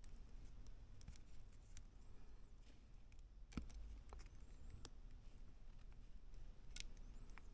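Faint, scattered clicks and taps of small Mini 4WD plastic and metal chassis parts being handled and fitted, the sharpest about three and a half seconds in and again near the end.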